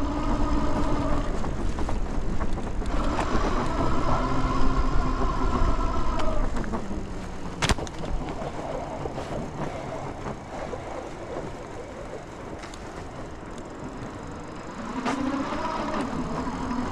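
Dual Bafang hub motors on a 72 V fat-tire e-bike whining under throttle in spells: briefly at the start, then from about three seconds in. The whine drops in pitch and fades around seven seconds in, and comes back near the end. Between spells there is a steady rush of riding noise, and a single sharp click about seven and a half seconds in.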